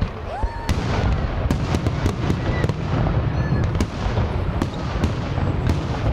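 Aerial firework shells bursting overhead: many sharp bangs and cracks in quick, irregular succession over a continuous low rumble.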